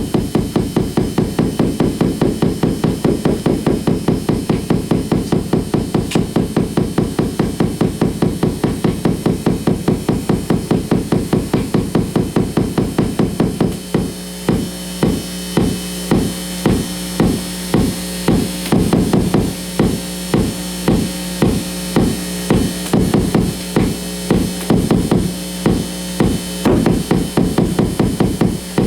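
Amplified electrical interference from flickering compact fluorescent bulbs on dimmer switches, picked up by exposed guitar cables and played without effects. It begins as a fast, even pulsing, about five pulses a second. About halfway it changes to a slower, uneven stutter over a steady buzzing tone.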